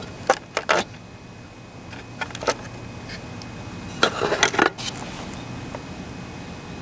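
Light clicks and metallic rattles as a hand handles the rear of a 1/6 scale model truck with small chains and fittings: a few sharp clicks in the first second, two more around two and a half seconds in, and a longer rattle about four seconds in.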